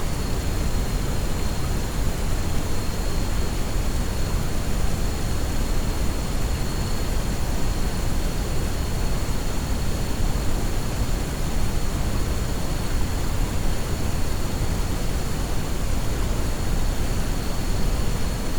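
Soft white-noise track: a steady, unchanging hiss weighted toward the low end, with a faint high steady tone running through it.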